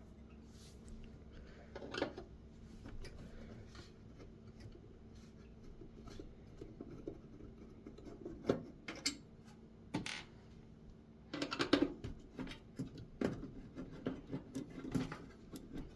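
Scattered metal clicks, scrapes and light clatter of hands working drives and screws loose inside a desktop computer case, with a denser run of clattering about three quarters of the way through.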